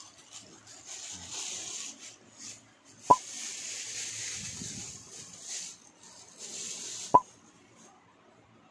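Clear plastic wrapping crinkling and rustling as a folded tripod is worked out of it. Two short pops about four seconds apart are the loudest sounds.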